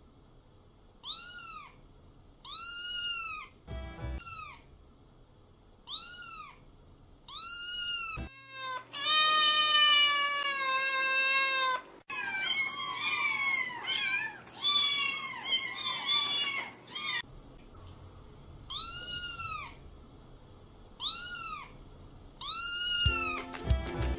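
A cat meowing: short, high meows, each rising then falling in pitch, coming singly or in pairs, with a longer run of drawn-out, wavering cries in the middle.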